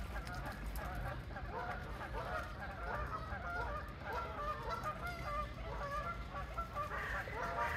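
A flock of geese calling over one another: short honking calls overlapping without a break, over a low steady rumble.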